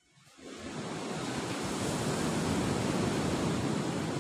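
Surf breaking and washing up the beach: a rushing wave sound that swells in the first second, holds, and begins to fade near the end.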